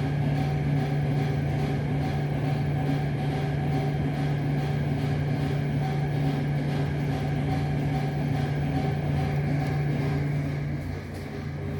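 A steady low mechanical hum from a running motor, easing off a little just before the end.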